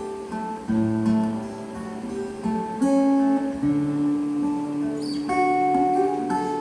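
Acoustic guitar music: a plucked melody of changing notes over lower bass notes.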